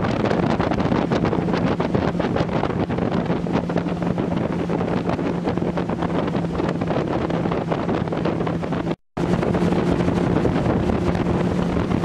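Motorboat running at speed, its engine a steady low hum under heavy wind buffeting on the microphone. The sound cuts out for an instant about nine seconds in.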